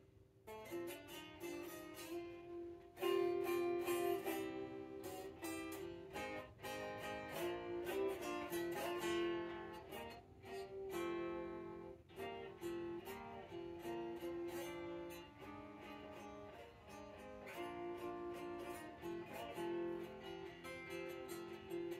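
Electric guitar played unplugged, without an amplifier: picked single notes and strummed chords in loose phrases, with short pauses between them.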